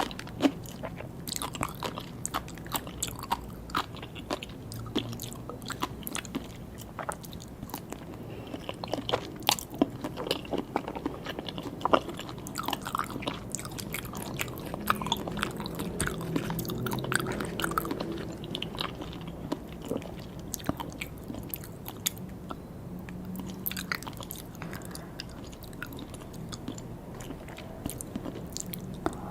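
Close-miked eating sounds: biting and chewing food, with a steady stream of small crisp pops and clicks.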